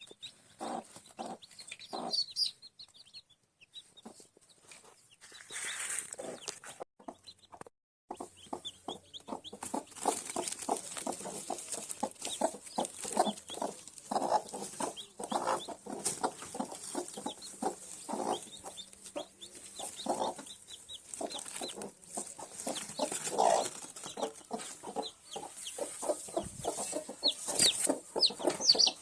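Domestic hens clucking with newly hatched chicks peeping: many short, quickly repeated calls, the chicks' thin, high, falling peeps mixed among the hens' lower clucks. There are brief lulls near the start.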